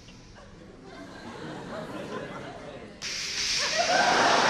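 Soft audience chuckles, then about three seconds in a sudden loud, steady rush of running water.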